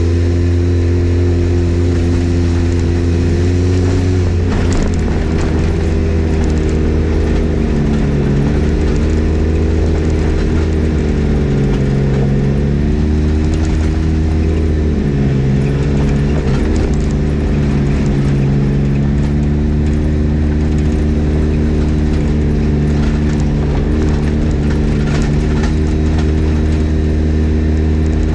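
Polaris RZR XP 1000 side-by-side's twin-cylinder engine running under way, its revs rising and falling with the throttle several times.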